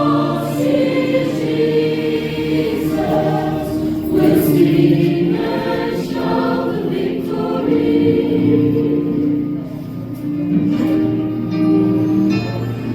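A choir singing a hymn, several voices holding long notes.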